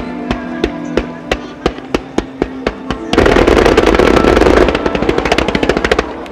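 Fireworks going off: sharp pops about three a second, then about three seconds in a sudden dense barrage of rapid-fire crackling shots with a deep rumble, lasting about three seconds. Music with sustained tones plays underneath throughout.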